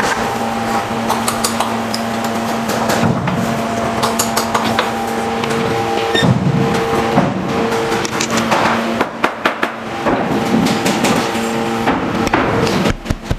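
Irregular sharp knocks and taps of hard objects striking, over background music with long held notes.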